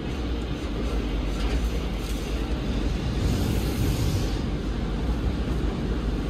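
Pressure-wash wand spraying water onto the car's windshield and body, heard from inside the car over a steady low rumble. The spray is loudest and hissiest about three to four seconds in, when it sweeps across the windshield.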